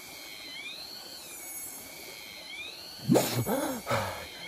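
A man comes up out of the water about three seconds in and lets out several short, loud wordless cries and gasps over the steady wash of the stream. A high tone rises and falls about every two seconds throughout.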